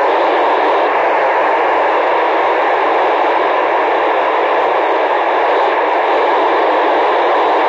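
Steady hiss of FM radio static from an amateur radio receiver, squelch open with no station transmitting: the gap between calls through an FM satellite repeater.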